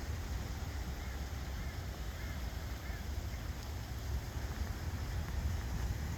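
Outdoor wind rumbling on the microphone, an uneven low buffeting with a light hiss above it, and a few faint high chirps between about one and three seconds in.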